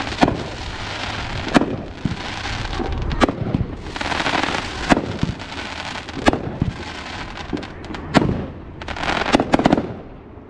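A 16-shot 500-gram firework cake, T-Sky's Never A Dull Day, firing shot after shot: sharp bangs about every one and a half seconds with a hiss between them. A quick cluster of several cracks comes near the end.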